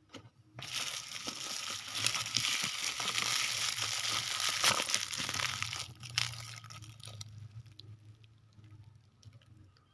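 Packaging being crumpled and handled during unboxing: dense crinkling for about five seconds, then quieter scattered rustles and clicks.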